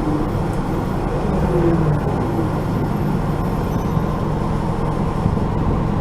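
Steady engine and running noise of a bus, heard inside its passenger cabin.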